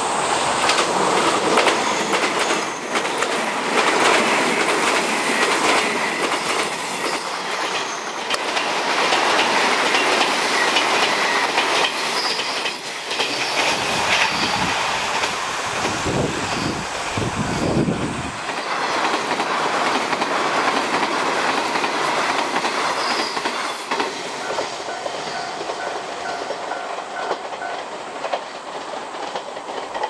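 381 series electric limited-express train running by, its wheels clicking over the rail joints. A brief low rumble about halfway through.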